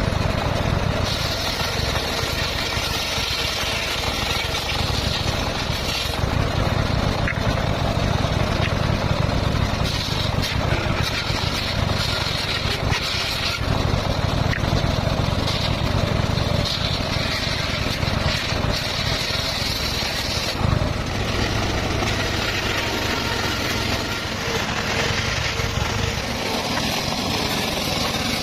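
Circular saw running steadily with its motor humming, the blade's higher whine rising in several passes of a few seconds each as it cuts through the stock.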